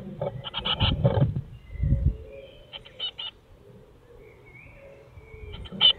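Blue tit chicks in a wooden nest box, heard through the box camera's microphone: faint thin chirps with bursts of scratching and bumping inside the box, in clusters at the start, about three seconds in and near the end.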